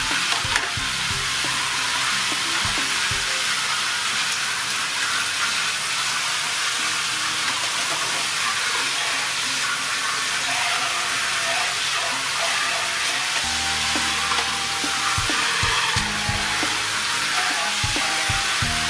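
Steady hiss of a fine water spray from a PVC pipe nozzle falling into a large aluminium basin as dishes are rinsed, with scattered light clinks of plates and spoons.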